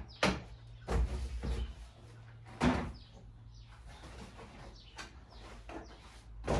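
Several short knocks and clunks of hard objects being handled and set down, about five in all, the loudest about a second in and about two and a half seconds in, over a low steady hum.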